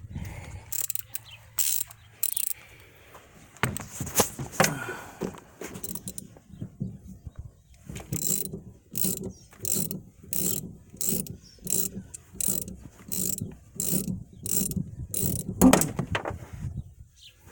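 Ratchet wrench working the upper 9/16 centre nut off a car's rear shock mount. There are a few scattered clicks first, then a steady run of clicks at about two a second, and a louder knock near the end.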